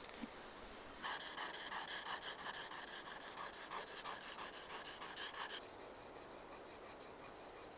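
Steel hook knife blade honed on a round sharpening puck: quick back-and-forth scraping strokes, about three or four a second, with a slight metallic ring. The strokes stop abruptly a little after halfway.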